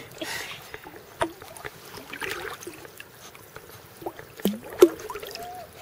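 Weimaraner puppy paddling in a swimming pool: small splashes and lapping water. A few brief squeaky sounds come about four and a half seconds in.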